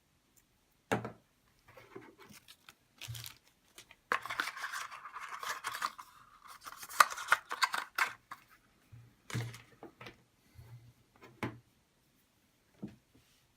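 Handling noises from unboxing a smartphone: a few separate knocks and clicks, with a stretch of scraping, rustling noise from about four to eight seconds in.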